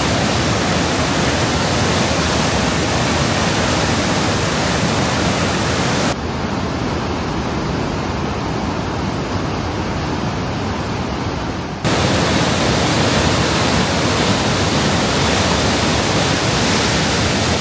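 A powerful river rushing, a loud steady wash of water noise. About six seconds in it cuts abruptly to a slightly quieter, duller stretch, then returns to full strength about twelve seconds in.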